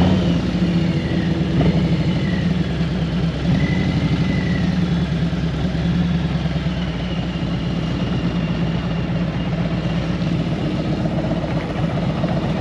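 Harley-Davidson Road Glide Special's Milwaukee-Eight V-twin running at low revs with a steady, even pulse as the bike rolls slowly, heard from the rider's seat.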